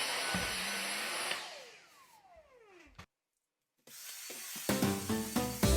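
Vacuum cleaner running steadily, then switched off about a second and a half in, its motor whine falling in pitch as it spins down. Background music comes in near the end.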